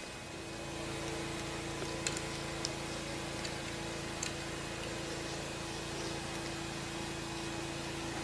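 Steady low hum with a few light clicks about two to five seconds in, as small test clips and a resistor's leads are handled and clipped onto terminals.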